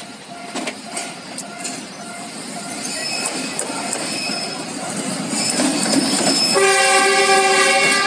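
A diesel locomotive approaching and passing, its noise growing steadily louder, while a level-crossing warning bell rings in short repeated tones in the first few seconds. About six and a half seconds in, the locomotive sounds its horn in one loud blast lasting about a second and a half, which is the loudest sound.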